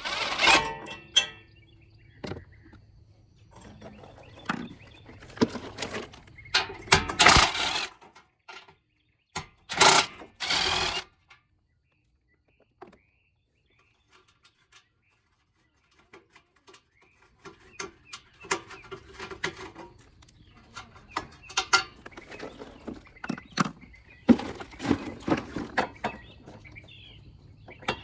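Cordless impact driver with a socket on an extension, running in short bursts as it spins out 10 mm bolts. Later come scattered clicks and knocks of metal brackets and tools being handled.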